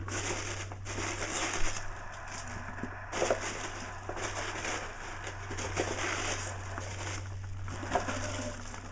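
Packing peanuts rustling and crackling as hands dig through them in a box, uneven and on and off, with a few sharp clicks.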